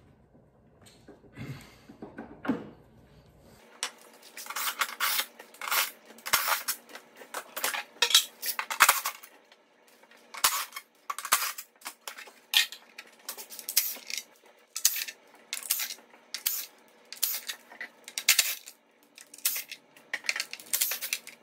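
Short bursts from a cordless impact driver running out the timing belt cover bolts, with metal clinking and clattering as bolts and parts are handled. It begins a few seconds in after faint handling sounds, then goes on in quick irregular bursts.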